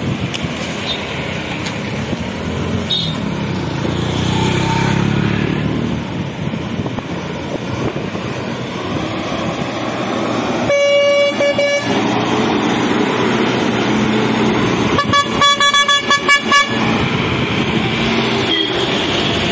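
Heavy diesel lorry engine running steadily under load. One horn blast of about a second comes roughly eleven seconds in, then a fast run of short horn toots near the end.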